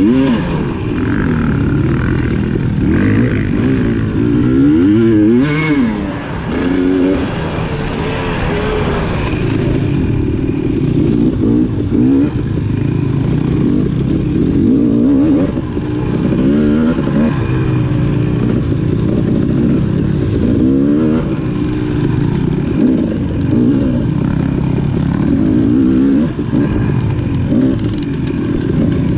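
Dirt bike engine being raced off-road, its revs rising and falling every second or two as the throttle opens and closes.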